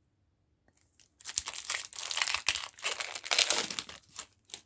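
Foil wrapper of a Pokémon TCG booster pack crinkling and tearing as it is ripped open by hand, starting about a second in and running in a dense crackle for about three seconds, with a few last crackles near the end.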